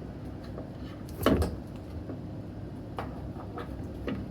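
One short clack about a second in, then a few faint clicks: parts being handled during a washer door lock replacement.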